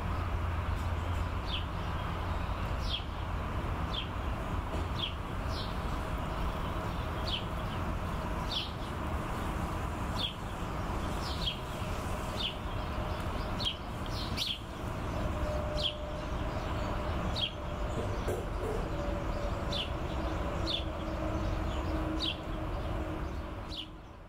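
A bird giving a short, high, falling call over and over, about once a second, over a steady low outdoor rumble. It fades out near the end.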